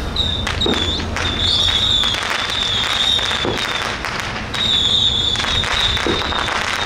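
Firecrackers going off in a dense, irregular crackle of sharp pops. A high, wavering whistle-like tone comes and goes over them.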